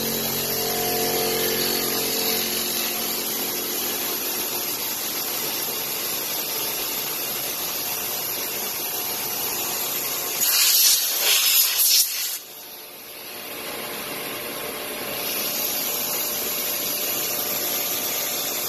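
CNC milling machine cutting a rotary-engine side housing: a steady machining hiss with spindle tones near the start. About ten seconds in come a few loud hissing spray bursts from the nozzle, then a brief quieter dip before the steady hiss returns.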